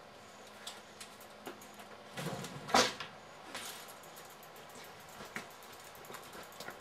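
A bicycle being pulled off a garage rack and wheeled across a concrete floor: light clicks and rattles of the frame, with one louder clunk nearly three seconds in as it comes down.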